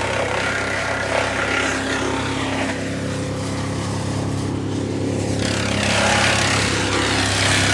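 An engine of working equipment running steadily at a constant speed. A wash of higher noise over it dies down about three seconds in and swells again about six seconds in.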